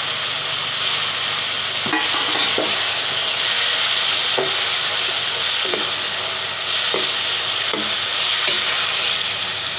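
Grated tomato, onions and capsicum sizzling in hot oil in a steel kadhai while a perforated steel ladle stirs them, knocking or scraping against the pan about every second. This is the tomato being fried into the masala.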